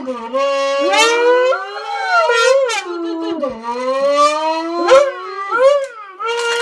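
Lip-buzzing blown into the opening of a flattened plastic Coca-Cola bottle, imitating a Lamborghini engine: a loud buzzing tone that keeps gliding up and down in pitch like an engine revving, with several quick upward sweeps.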